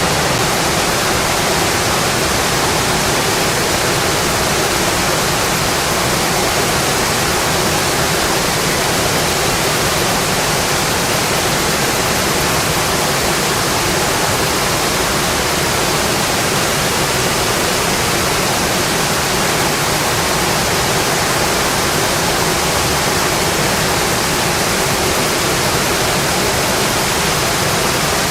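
Steady rainfall, an even hiss with no separate drops, thunder or other events standing out.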